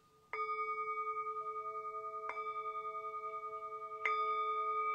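Tibetan singing bowl held on the palm and struck three times with a striker, about two seconds apart. Each strike rings on in a long, steady tone that wavers slowly, and the third strike is the loudest.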